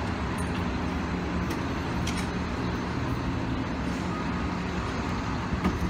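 Steady low rumble of road traffic with a faint steady hum running under it, and a few faint clicks.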